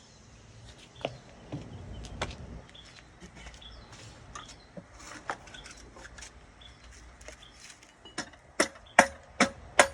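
Hammer blows on metal, driving the rear axle carrier bearing out of a Honda TRX450 ATV. Scattered light knocks and clinks, then from about eight seconds in a steady run of sharp, ringing strikes about two a second.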